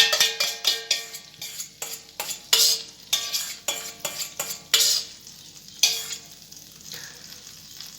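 Spoon stirring and scraping a frying pan of shrimp and calamari sizzling in butter and oil, with sharp scrapes every second or so over the steady sizzle, the loudest at the start.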